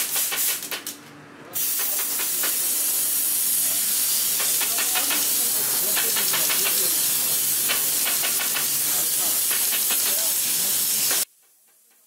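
Pneumatic staple gun on a compressed-air hose, stapling fur pelts to a wooden board: many sharp irregular clicks over a steady loud hiss of air. It stops abruptly about a second before the end.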